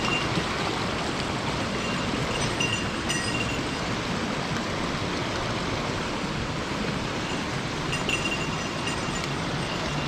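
Mountain stream flowing steadily, an even rush of water.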